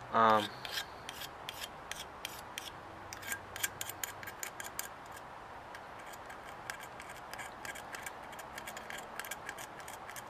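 Razor blade scraping paint off a die-cast model truck cab: quick, short scratching strokes, several a second in an uneven rhythm.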